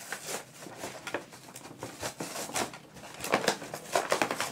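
Clear plastic packaging and a cardboard box crinkling and rustling in irregular crackles as a toy house is worked out of its plastic tray.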